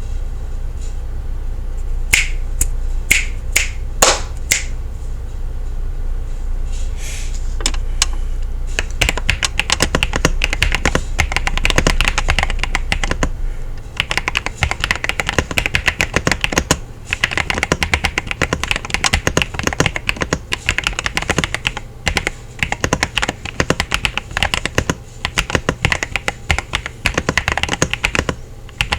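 Typing on a KZZI K75 Lite mechanical keyboard: a few separate keystrokes in the first seconds, then fast, continuous typing from about nine seconds in.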